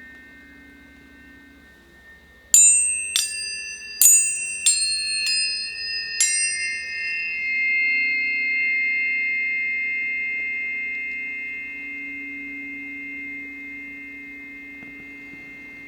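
Planetary tuning forks struck six times in quick succession, each strike a sharp ping that leaves several pure tones ringing on and slowly fading. A low steady tone hums beneath them.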